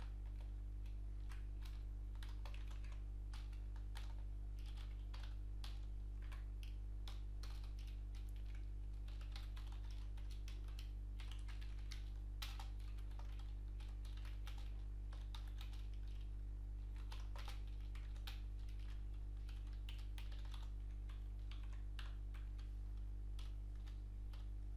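Typing on a computer keyboard: irregular runs of quick key clicks with short pauses, over a steady low hum.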